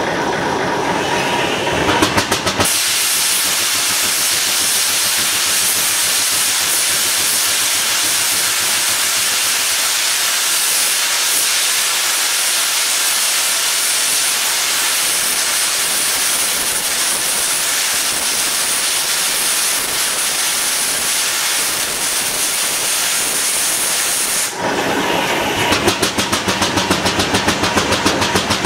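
Steam engine releasing steam in a loud, steady hiss that starts suddenly a few seconds in and cuts off about twenty seconds later. Around it the engine runs with a fast, even beat.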